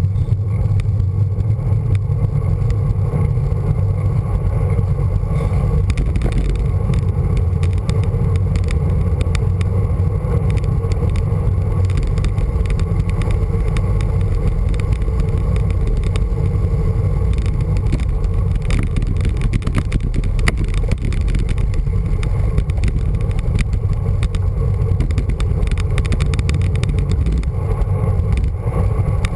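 Steady low wind rumble on a handlebar-mounted camera of a moving road bike, mixed with tyre and road noise. A run of sharp knocks comes about two-thirds of the way through, like the bike jolting over rough road.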